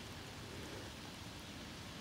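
Steady hiss of flowing river water, with no distinct knocks or scrapes.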